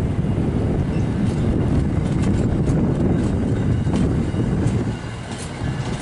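Amtrak passenger coaches rolling past: a steady low rumble of the cars with sharp clicks from the wheels over the rail joints. The rumble eases a little near the end as the last car goes by.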